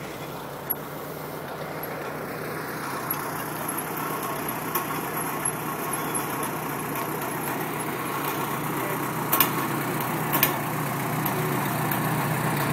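Farmall tractor engine running steadily, with a few sharp clicks about nine and ten seconds in.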